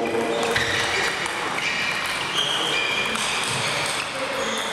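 Celluloid-style table tennis ball ticking sharply a few times off bats and tables, over the hall's background of voices.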